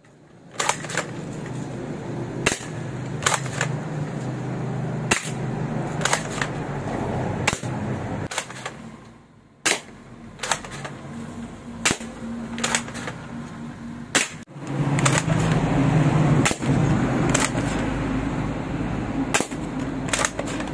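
Repeated sharp gunshot-like cracks, roughly one a second and often in quick pairs, over a steady low drone that dips briefly near the middle.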